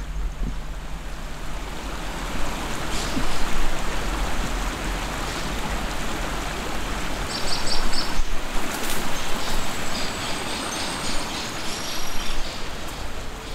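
Outdoor ambience: a steady rushing noise, with a few short high bird chirps just past halfway.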